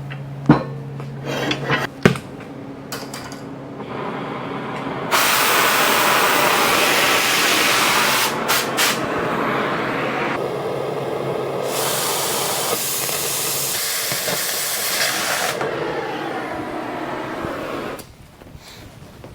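A few clicks and knocks, then a metal-cutting torch hisses loudly and steadily for about thirteen seconds, cutting steel, before it stops abruptly.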